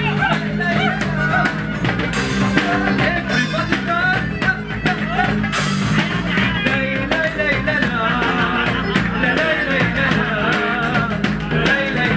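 A live band playing a Middle Eastern song: a male singer singing into a microphone over violin, acoustic guitar and bass, with a steady beat. Two short bursts of hiss cut in about two and five and a half seconds in.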